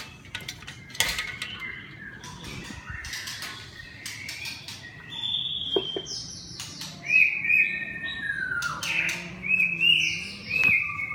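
Birds chirping and calling in many short, repeated notes that get louder and busier in the second half, with a few sharp clicks mixed in.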